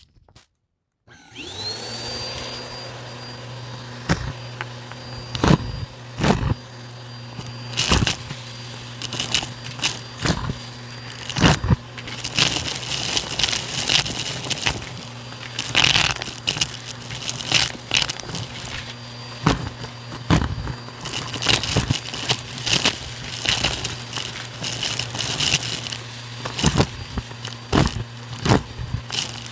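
Bissell vacuum switched on about a second in, its motor whine rising and settling into a steady hum. Over it, hard bits of debris and grit crackle and clatter as they are sucked up off a shag rug, in frequent sharp cracks.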